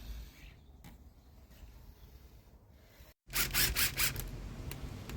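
Faint handling noise, then, a little past three seconds in, quick rasping saw strokes cutting into a condensate pipe to make a semi-tundish air break.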